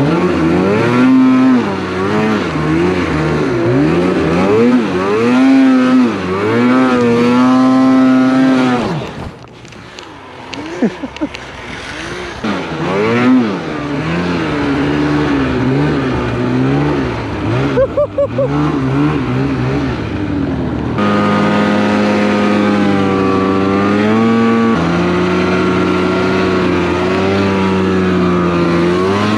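Snowmobile engine revving up and down, its pitch rising and falling again and again. It drops off about nine seconds in, then picks up again and runs steadier from about twenty-one seconds, shifting pitch in steps.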